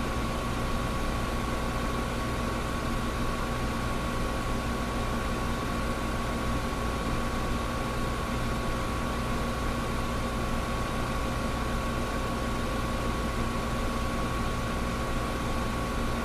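Air conditioner running: a steady rush of air with a constant low hum and a higher, thin whine.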